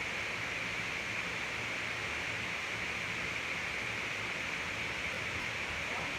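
Steady background hiss with no other distinct sound.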